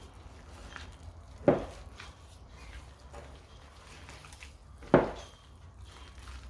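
Gloved hands mixing chicken mince in a bowl, with soft faint squishing and two sharp knocks against the bowl, about a second and a half in and again about five seconds in.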